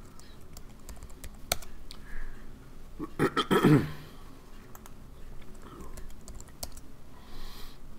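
Scattered clicks of a computer keyboard and mouse as values are typed in and the scroll wheel is turned. A brief low vocal noise a little over three seconds in is the loudest sound.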